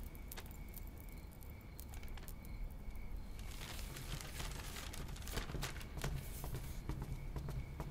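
Quiet room tone with faint paper rustling and a few soft, scattered clicks as sheets of a document are handled.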